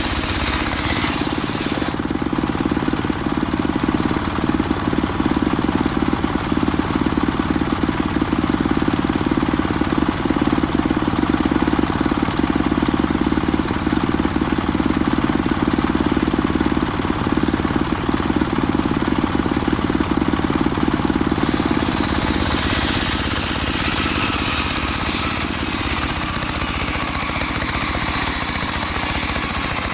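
Homemade circular sawmill running steadily while its blade rips a mahogany log lengthwise. The noise gets louder about two seconds in and eases off about two-thirds of the way through.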